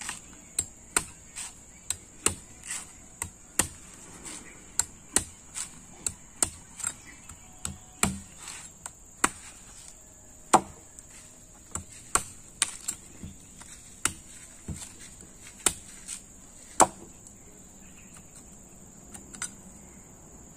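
A heavy knife chopping into a husked young coconut on a wooden bench: sharp, irregular chops about one or two a second, stopping after about seventeen seconds with one last lighter chop near the end.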